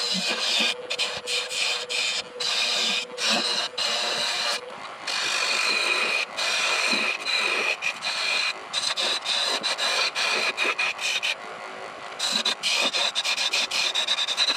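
Gouge cutting green wild cherry spinning on a wood lathe: a continuous scraping hiss of the cut, broken again and again by brief gaps, with a steady high tone under it. The cut goes quieter for about a second near the end before picking up again.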